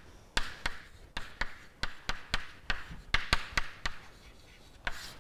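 Chalk tapping and scratching on a chalkboard as words are written by hand: a quick, uneven run of sharp taps, each with a short scrape.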